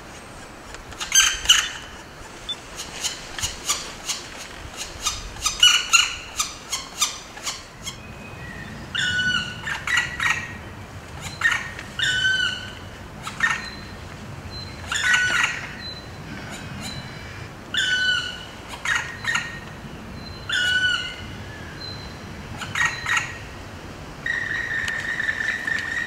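Black woodpecker calling from inside its nest hole: a quick run of sharp, clicking notes for the first several seconds, then short calls repeated about every second and a half, and one longer, steadier call near the end.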